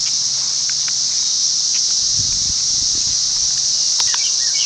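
Dense chorus of 13-year periodical cicadas: a steady, high-pitched, unbroken drone, with a couple of faint clicks about four seconds in.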